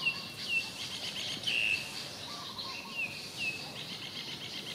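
A series of short, high chirping calls, some dropping in pitch, repeated at uneven intervals with the loudest about one and a half seconds in, over a steady background of insects buzzing.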